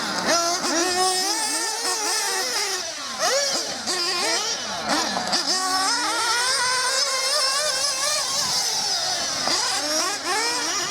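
Several radio-controlled racing cars running laps together, their motors whining and constantly rising and falling in pitch as the drivers throttle on and off.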